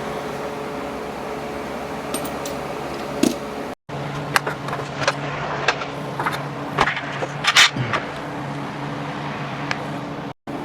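Scattered short metallic clicks and knocks of hand tools working on the bumper's mounting bolts, over a steady background hum. The sound cuts out briefly twice.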